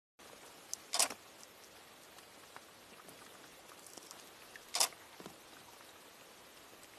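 Leopards lapping water: scattered soft wet clicks, with two louder laps about a second in and just before five seconds, over a faint steady hiss.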